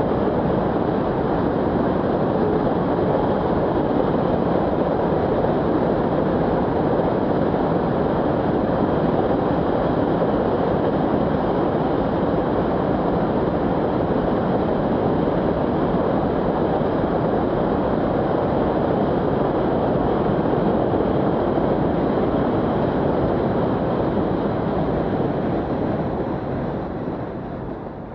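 RO-RO freight train of flat wagons loaded with lorries rolling across a railway bridge: a steady rumble of wheels on the rails that fades away near the end as the last wagons pass.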